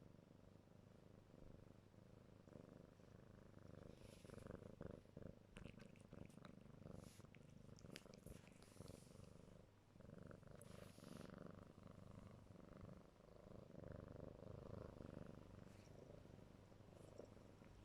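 A kitten purring faintly and steadily while it suckles and kneads, with scattered soft wet clicks and smacks from the suckling, most of them in the first half.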